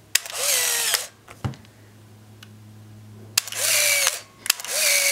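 Canon AF35ML autofocus compact camera's motor-driven mechanism whirring in three short bursts, each started by a sharp click. It is very, very noisy.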